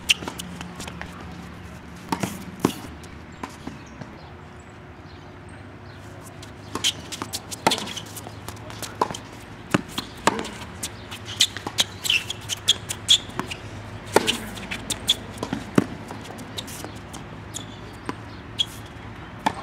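Tennis rally on a hard court: sharp pops of rackets striking the ball and the ball bouncing, at an irregular pace. After a lull of a couple of seconds, the hits come in a quick run through the middle of the stretch, then thin out near the end.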